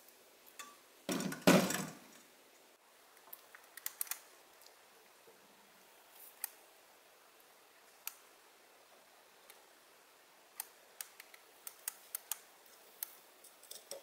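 A dull thump about a second in, then scattered small sharp clicks from hand work on an old rusty loudspeaker driver's frame and cone. The clicks come more often near the end.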